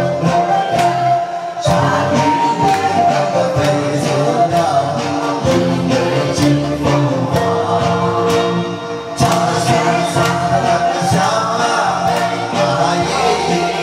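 A group of people singing along together to a karaoke backing track, one man leading on a microphone with several voices joining in over the music.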